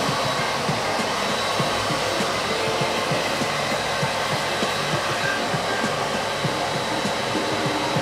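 Handheld hair dryer blowing steadily: a constant rush of air with a thin high whine.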